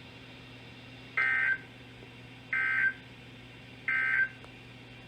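Emergency Alert System SAME digital data bursts: three short, identical screeching data tones about a second apart. Their shortness fits the end-of-message code that closes an alert. A faint steady hum lies underneath.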